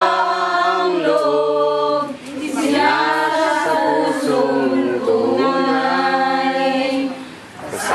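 A group of women singing a Tagalog song together without instruments, in long held notes, with short breaks between phrases about two seconds in and near the end.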